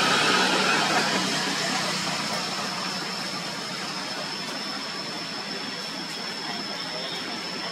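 Steady outdoor background hum and hiss with a thin, continuous high-pitched whine, a little louder in the first couple of seconds.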